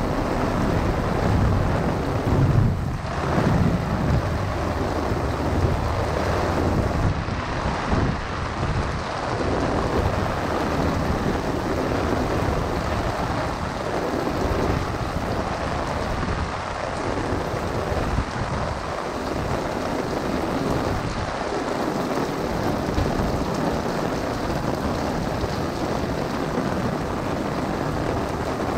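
Heavy rain pouring steadily onto a golf umbrella and the wet street, with thunder rumbling.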